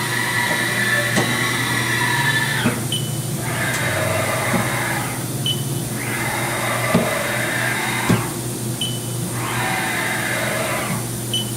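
Haas VF2 vertical machining center's X-axis servo drive and ballscrew whirring as the table is handle-jogged, the whirr stopping briefly and restarting four times over a steady machine hum, with a few light clicks.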